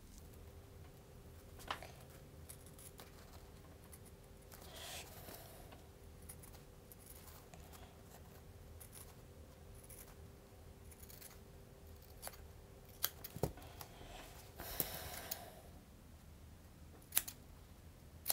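Utility shears cutting through a thick foam sheet: scattered snips with sharp blade clicks, and two longer cutting strokes, about five seconds in and again near fifteen seconds. Quiet throughout.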